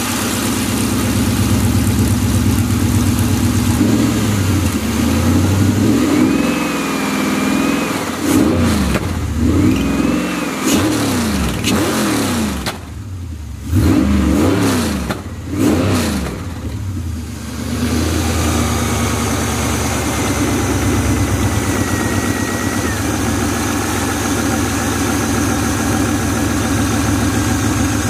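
A high-mileage (176,000 miles) 2000 Camaro 5.7-litre LS1 V8 running on a stand, idling, then blipped by hand at the throttle body in a series of quick revs from about six to seventeen seconds in, then settling back to a steady idle near 1,000 rpm.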